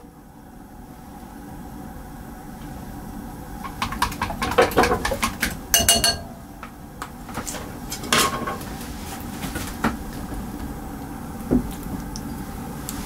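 Square metal omelette pan clanking and scraping on the gas stove's grate in several bursts, one of them ringing, over a steady hiss from the stovetop.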